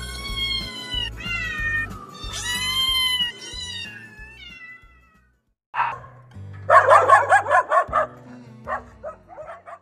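Domestic cat meowing four or five times in a row, each meow a long wavering call, over background music. Toward the end comes a short sharp call and a quick rattling run of animal calls.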